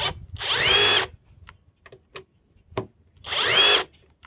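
Hercules 2200 in-lb cordless impact driver run in two short bursts while backing out a steel fastener. Each time the motor whine rises in pitch.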